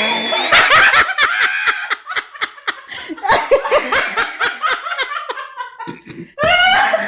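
People laughing hard in quick bursts of voiced laughter, breaking off briefly about six seconds in before starting again.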